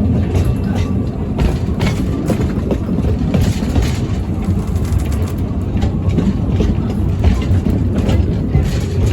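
Narrow-gauge train running along the track: a steady low rumble of the coaches with irregular clicks from the wheels over the rails.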